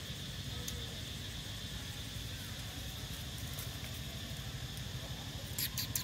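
Outdoor ambience: a faint, steady high insect drone over a low background rumble, with a few light clicks near the end.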